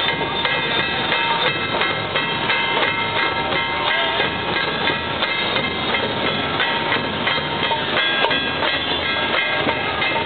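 Festival drums played in a fast, driving rhythm, with ringing metallic tones held over the beat.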